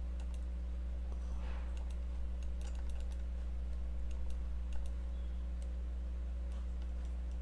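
Steady low electrical hum, with a scatter of faint computer mouse clicks as buttons are pressed.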